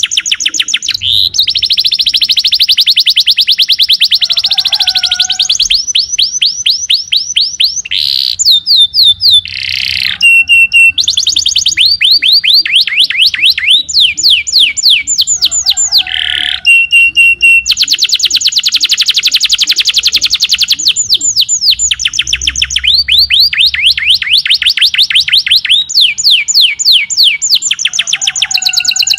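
Domestic canary in full song, singing almost without pause: long, rapid trills of repeated downward-sweeping notes, switching between rolls of different speeds, with only brief breaks.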